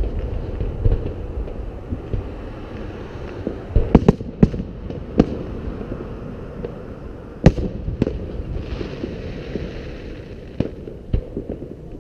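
Aerial fireworks shells bursting with sharp bangs: a quick cluster about four seconds in, then single bangs near five, seven and a half and eleven seconds, with a low rumble between them.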